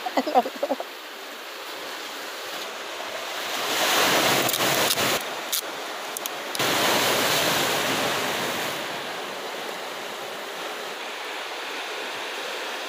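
Sea waves breaking and washing on a boulder beach, surging up about four seconds in and again near seven seconds, then settling to a steady wash.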